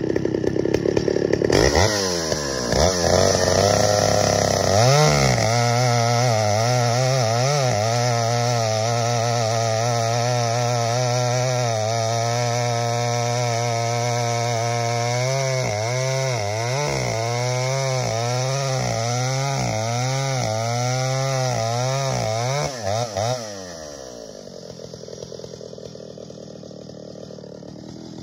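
Stihl 075 two-stroke chainsaw, its carburetor freshly rebuilt and installed, running at high revs, dropping lower about a second and a half in, then running with its pitch wavering up and down about once a second. About 23 seconds in it falls much quieter.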